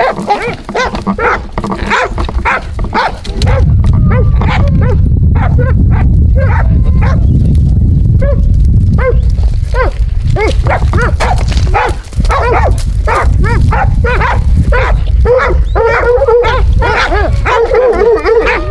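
Hog dogs barking and yelping in quick, overlapping barks as they catch and hold a wild hog. A loud low rumble sits on the microphone from about three seconds in.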